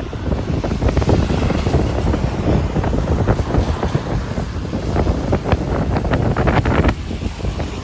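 Strong wind buffeting the microphone in a rainstorm, a loud rumbling rush with scattered short taps and crackles.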